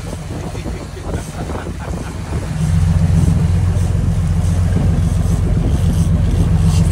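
Sport-fishing boat's engine running steadily with a low hum, growing louder about two and a half seconds in.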